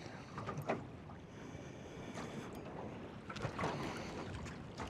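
Wind and water noise around a small fishing boat, with a few short knocks, one about a second in and a cluster around three and a half seconds.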